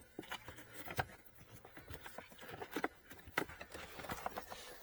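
Scattered light clicks and knocks, with a sharper knock about a second in and another near the end, as the lower cabin air filter is pulled free of its housing and handled.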